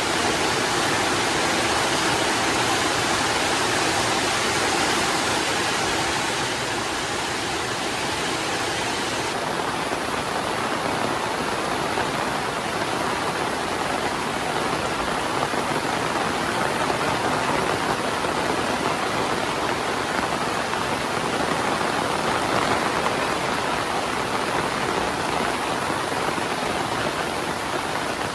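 Heavy rain falling as a steady, dense hiss with no thunder claps. The sound dulls slightly about nine seconds in.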